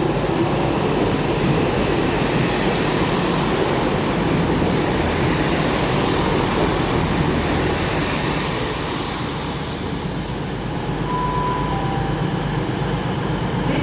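Great Western Railway Class 166 diesel multiple unit running into the platform: steady diesel engine rumble and wheel noise, with a high hiss swelling a little past halfway through.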